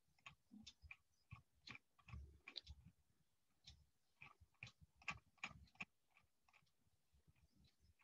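Faint, irregular clicks and ticks, a few each second, from a computer mouse as the PDF is scrolled. They stop about six seconds in.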